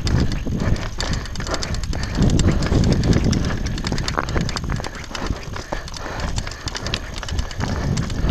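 Downhill mountain bike rattling over a rocky trail: a dense, irregular clatter of tyres on loose stones and chain and frame knocks, over a low wind rumble on the camera microphone.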